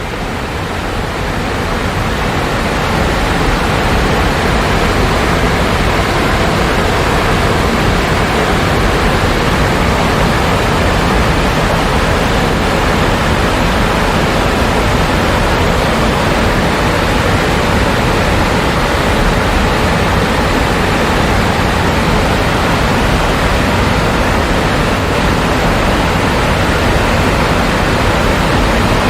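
Waterfall pouring, a loud, steady, even rush of falling water that swells in over the first few seconds.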